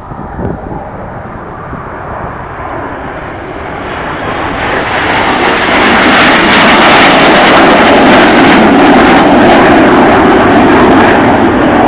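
Jet noise from Red Arrows BAE Systems Hawk jets flying past. A steady rush that builds over the first few seconds, is loudest for about five seconds around the middle, then eases slightly near the end.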